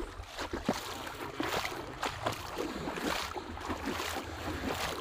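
Shallow water splashing and sloshing in quick irregular bursts, with wind rumbling on the microphone.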